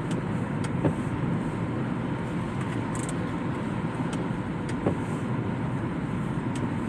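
Car on the move: a steady low road and engine rumble, with scattered light taps every second or so.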